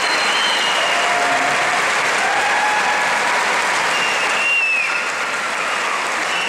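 Concert audience applauding steadily at the end of a song, with a few long high whistles over the clapping.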